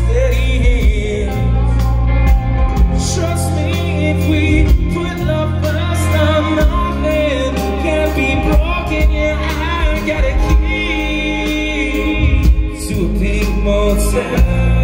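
Live rock band playing loudly: electric guitars, bass guitar and drums, with a man singing into a microphone over them.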